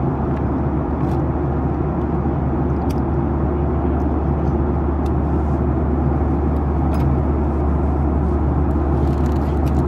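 Steady cabin drone of a Boeing 737-900ER in cruise, as heard from a window seat: the CFM56-7B engines and the airflow over the fuselage, low and even, with a few faint clicks.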